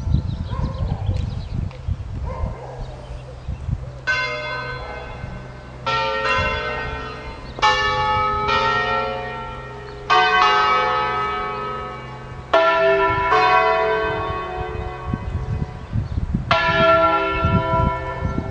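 A ring of five Ambrosian church bells tuned E, F#, G#, A and B, cast by the Capanni foundry except the A, heard in a concerto. The bells sound one at a time in an irregular sequence: about nine single strokes a second or two apart, each ringing on and fading, over a low steady rumble.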